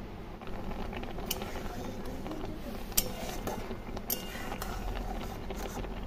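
Semolina, water and sugar bubbling as they come to the boil in a steel karai, a continuous crackling and popping, with a few sharp clicks.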